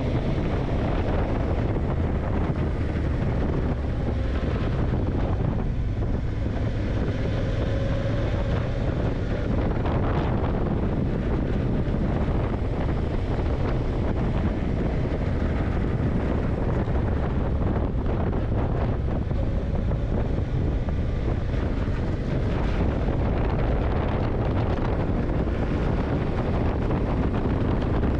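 Yamaha TDM900's parallel-twin engine running steadily at road speed, heavily mixed with wind rushing over the microphone.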